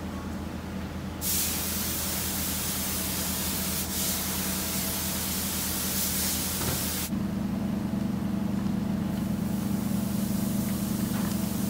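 Steady workshop machinery hum. A loud hiss sits over it from about a second in, stops abruptly about seven seconds in, and a fainter hiss returns near the end over a stronger hum.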